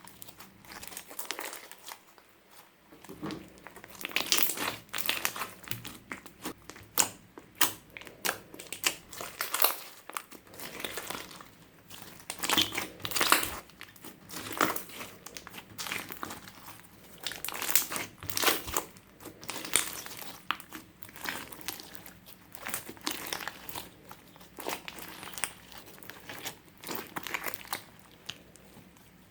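Clear slime being squeezed and kneaded by hand, giving dense, irregular sticky clicks and crackling pops, with a few quieter stretches between handfuls.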